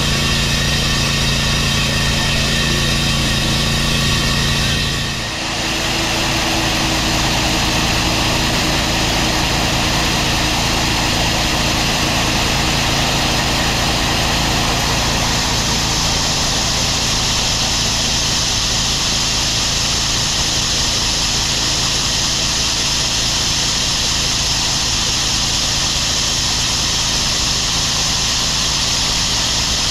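Electric core drill on its stand boring into concrete, running steadily and loudly, with an engine running underneath. The noise dips briefly about five seconds in and then goes on with a changed tone.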